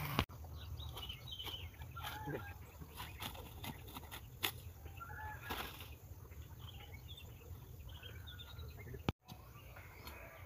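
Outdoor rural ambience: scattered short bird calls and chirps over a steady low rumble, with a few sharp clicks. The sound drops out for a moment about nine seconds in.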